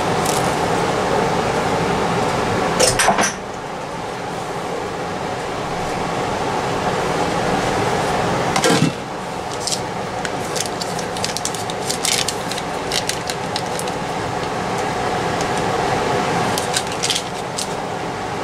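Ingredients and containers being handled around a stainless steel mixing bowl on a countertop: a cluster of clicks and knocks about 3 seconds in, a knock near 9 seconds, then scattered small clicks as a stick of butter is unwrapped and set in the flour. A steady mechanical hum runs underneath.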